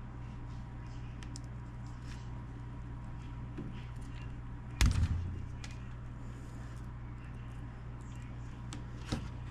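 A steady low hum, with one loud knock about five seconds in and a lighter click near the end: handling noise at a workbench.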